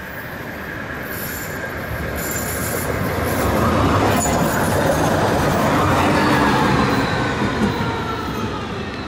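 A tram passing on street track, growing louder towards the middle and then fading, with a rumble of wheels on rail and a thin high whine in its later half.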